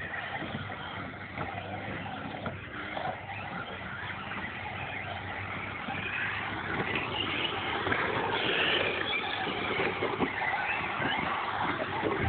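Radio-controlled cars racing, a busy mix of motor and tyre noise that grows louder over the stretch.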